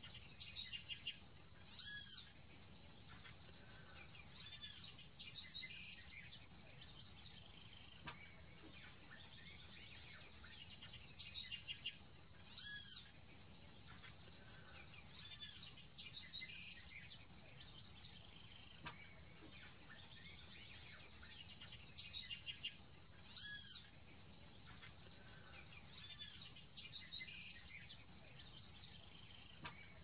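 Birds calling: short, clear whistled chirps in quick groups every few seconds, with similar phrases coming back again and again, over a faint steady high tone.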